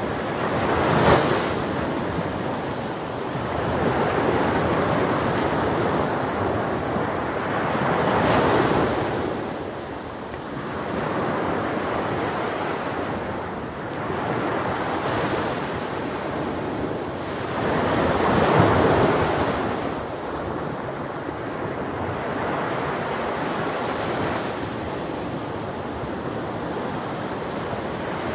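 Ocean surf on a beach: waves breaking and washing in one after another, each swelling and fading over several seconds, with the strongest breaks about a second in and again past the middle.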